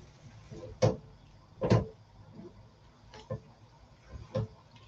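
A utensil knocking and clattering against a wok and cookware on the stovetop: about six separate knocks, the loudest about two seconds in.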